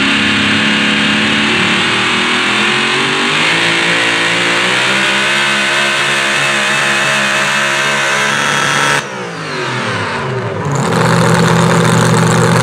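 Supercharged engine of a super modified 4WD pulling truck at full throttle through open exhaust stacks, pulling the sled at high revs, its pitch sagging a little about halfway. About nine seconds in the throttle is cut and the revs fall away suddenly. A lower, steady engine note picks up again near the end.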